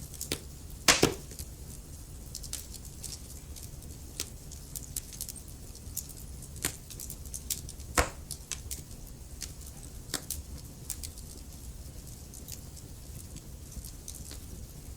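Wood fire crackling in a fireplace: scattered sharp pops and snaps over a low steady rumble, with two louder pops about a second in and about eight seconds in.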